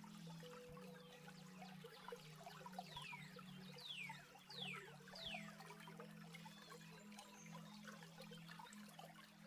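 Faint running water of a stream with birds chirping; a bird gives four quick falling whistled notes in a row about three to five seconds in. A low steady drone runs underneath.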